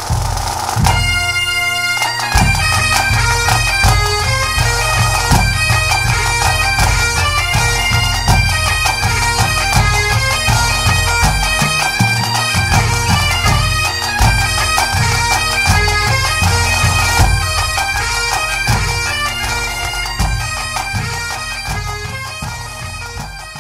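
Bagpipes playing a tune over their steady drones, with a regular drum beat underneath, as a pipe band does; the music eases slightly in volume near the end.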